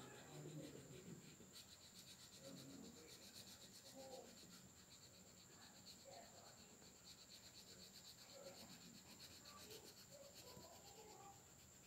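Faint, rapid scratching of orange colour being shaded by hand onto a paper book page, stroke after stroke in quick back-and-forth runs.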